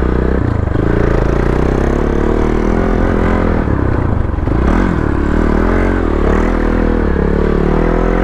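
Off-road motorcycle engine running under load, its revs rising and falling over and over through the second half.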